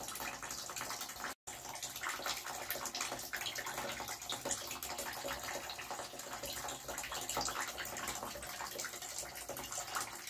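Kitchen tap running a thin stream of water into a stainless-steel sink: a steady splashing hiss that cuts out for an instant about a second and a half in.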